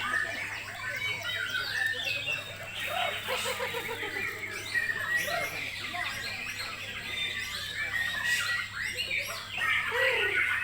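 White-crowned shama (Bornean shama) singing a dense, varied run of quick whistles and chirps without a break.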